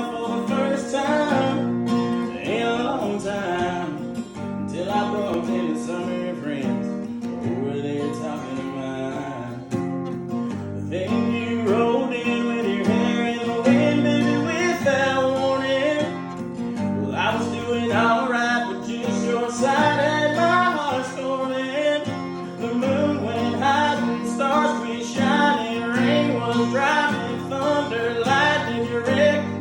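Country song with strummed acoustic guitar and a singing voice.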